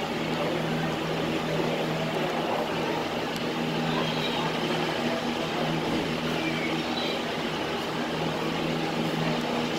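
Steady low machine hum over a constant rushing noise.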